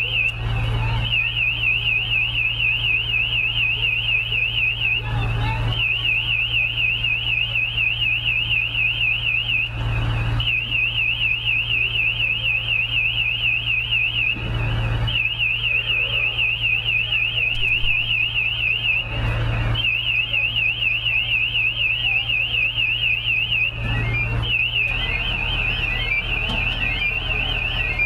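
Electronic alarm sounding a fast, high-pitched warble that breaks off briefly about every five seconds, switching to a stepped, rising chirp pattern near the end, over a steady low hum.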